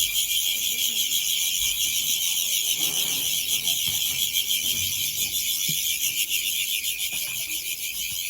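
A dense, steady chorus of shrill high-pitched chirping and trilling from many small animals, which sounds like an alarm ringing.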